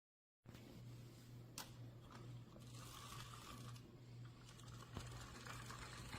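Near silence: faint room tone with a steady low hum and a few light clicks.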